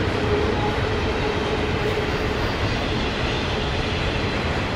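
Double-stack intermodal container train rolling past on curved track: a steady noise of wheels and cars on the rails, with a faint steady whine over it.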